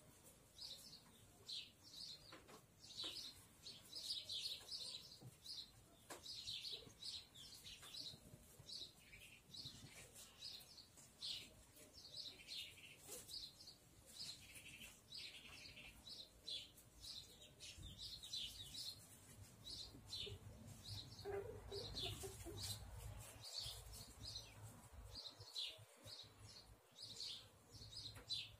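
Small birds chirping faintly, a steady run of short, quick chirps, with a low rumble joining about two-thirds of the way through.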